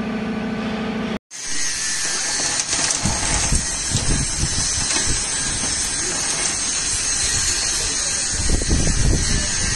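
Steady machine noise of an inclined belt conveyor running: a continuous hiss with a thin high whine, and uneven low rumbles now and then. It opens with about a second of a steady hum from a concrete block-making machine, which cuts off abruptly.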